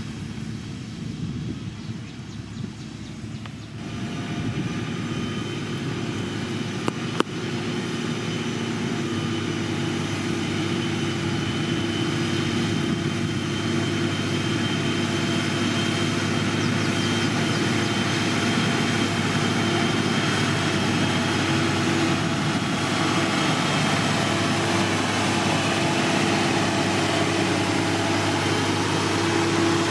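Heavy diesel road-construction machinery running steadily. Its engine grows louder about four seconds in and then holds steady, with one sharp knock about seven seconds in.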